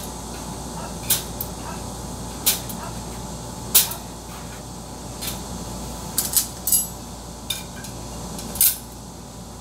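Hatching eggs being set one by one into the plastic egg racks of an Rcom Maru Max 200 incubator: a series of short, sharp clicks and taps, about eight in all, a few close together about two-thirds of the way through, over a steady hum.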